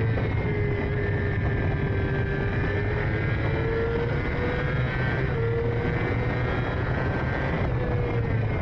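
Racing sidecar outfit's engine running hard at high revs, its pitch holding high with slight rises and dips, over a steady noisy rush.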